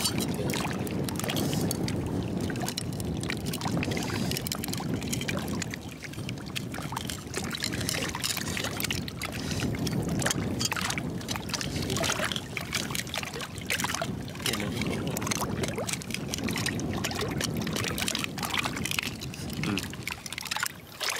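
A flat metal blade scraping and prying at a bed of oyster shells, with many sharp clicks and crunches of shell as the oysters are pried open.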